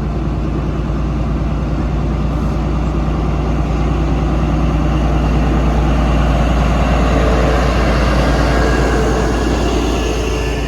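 Class 43 HST power car diesel engine running, with a steady deep hum. The sound swells gradually, peaks a little past the middle, then eases near the end.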